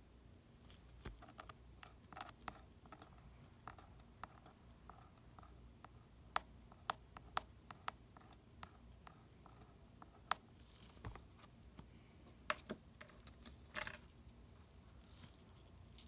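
A hand tool scraping and tapping against a small metal plate while a thin copper jumper wire is worked on it: irregular sharp clicks, with a few short scrapes in the second half.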